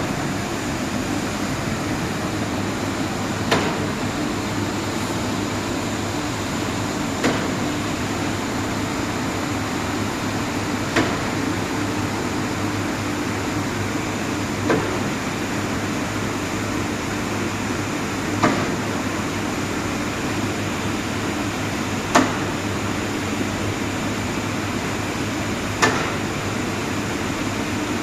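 Hot oil boiler running with a steady hum, broken by a sharp knock that repeats about every three and a half to four seconds. The knock is the abnormal noise of the boiler.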